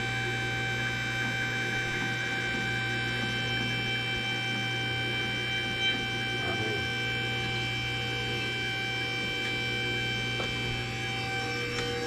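Steady electric hum of a hydraulic tube bender's pump running as it bends a steel hydraulic line, with a short knock about six seconds in. A second, higher tone joins just before the end.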